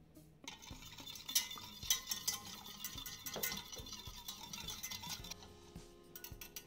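Wire whisk beating milk with cornstarch and sugar in a stainless-steel saucepan: rapid scraping and clinking of the wires against the pan and frothy splashing, dying away about five seconds in.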